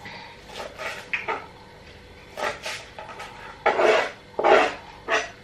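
Irregular knocks and scrapes of dishes and utensils being handled, a few short ones and then two longer, louder ones near the end.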